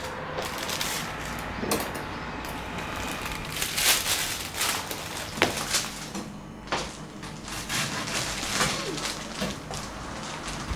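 A knife cutting a crusty bread roll on a wooden board, irregular scraping, crackling strokes with a few sharper knocks, over a faint low hum.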